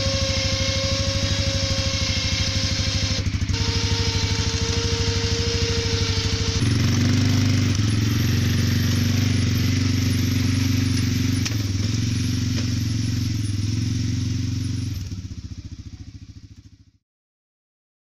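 An engine running steadily with a fast, even beat and a whine over it. The whine drops in pitch about three seconds in and stops about six and a half seconds in, when the engine's note changes and it gets a little louder. It then fades out over the last couple of seconds.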